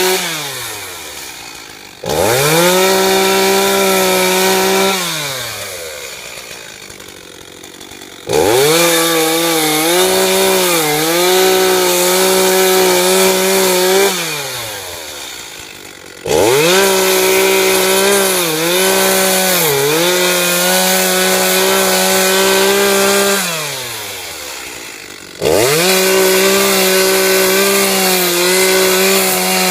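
Chainsaw revved to full throttle in four long bursts, its pitch dipping briefly now and then as it cuts into wood. Between bursts it winds down toward idle.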